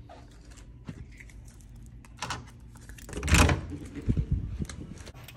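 Wooden hotel room door with a brass lever handle being handled and pushed shut: scattered small clicks, a loud knock with rustling a little past three seconds in, then a few quick clacks of the handle and latch.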